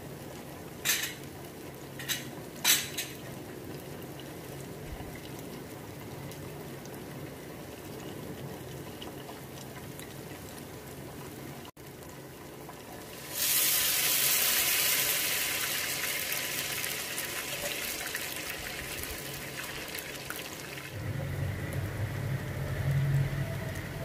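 Hot ghee frying ghewar batter in a steel pot, a steady sizzle with a few sharp taps near the start. About halfway a much louder hissing sizzle starts, as fresh batter hits the hot ghee, and slowly eases off; a low hum joins near the end.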